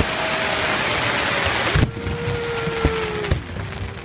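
Fireworks crackling densely, like heavy rain, until the sound cuts off suddenly a little under halfway through. A few sharp booms follow, along with a long, slightly falling held tone.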